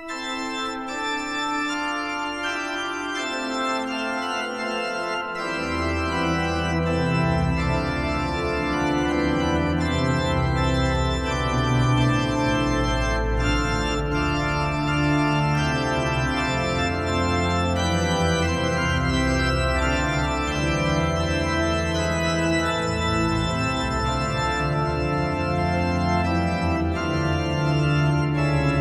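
Organ playing slow, sustained chords, with low bass notes joining about five seconds in.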